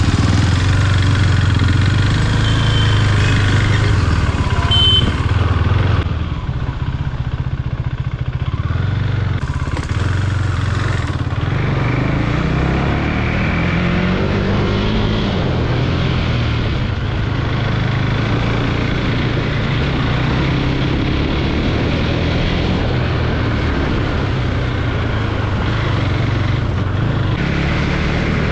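Motorcycle engine running while the bike is ridden, its note rising and falling with the throttle, with steady wind and road noise.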